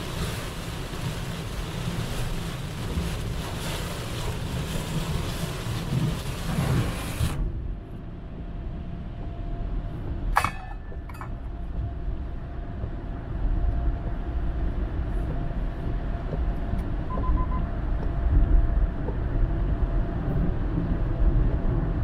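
Heavy rain hissing on the car's windscreen and body, with tyres on a flooded road and road rumble, heard from inside the moving car. About seven seconds in, the rain hiss cuts off suddenly as the car drives into a tunnel, leaving a steady low tyre and engine rumble. A few seconds later there is a sharp click, then a fainter second one.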